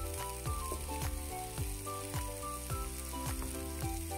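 Background music with a steady beat of about two strikes a second, over the sizzle of a milk and mushroom sauce simmering in a pan as it is stirred with a wooden spoon.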